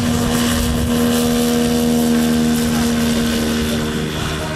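Large-scale RC Bf 109 model's two-stroke petrol boxer twin engine and propeller at full throttle, a steady high drone through the take-off run and lift-off. The pitch drops near the end as the plane passes and climbs away.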